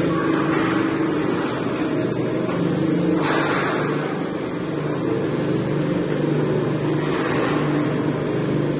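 Roll forming machine for rolling-shutter bottom sections running with a steady hum, its motor driving the forming rollers. A brief burst of hiss about three seconds in.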